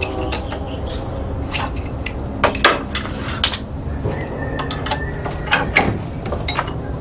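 Blacksmith's hammer striking steel on an anvil: a run of irregular blows, some in quick pairs, each with a short metallic ring, over a steady low noise.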